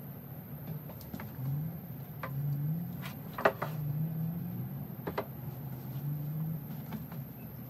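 Plant pots being set down and moved on a metal patio table: a few light knocks, the loudest about three and a half seconds in, over a steady low hum.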